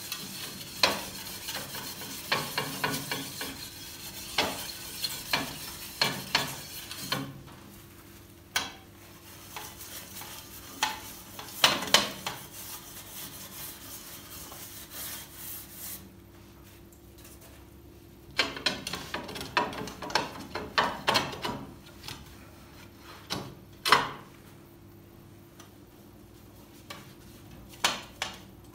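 Scouring side of a dish sponge scrubbing the glass door of a cast-iron stove: stretches of rough rubbing with sharp clicks and knocks, broken by a few short pauses.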